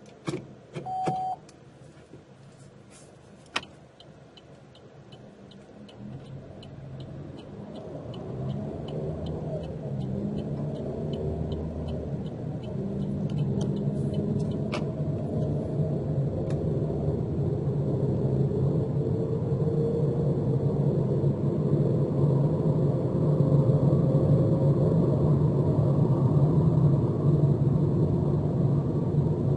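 Car pulling away and accelerating, heard from inside the cabin: engine and road noise build over the first twenty seconds, the engine note rising in steps through the gears, then settle into a steady cruising rumble. A short beep about a second in and light ticking in the first few seconds.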